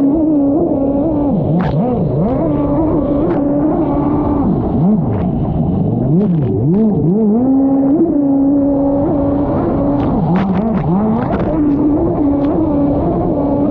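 Stand-up freestyle jet ski engine revving up and down over and over: the pitch drops away and climbs back to a steady high run several times.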